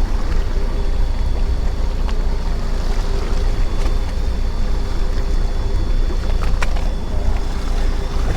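Fishing boat running steadily: a low engine rumble and hum mixed with wind and water noise.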